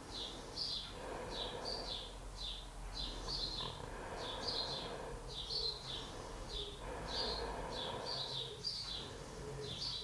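A bird singing a faint, steady series of short chirps, each falling in pitch, about one and a half a second.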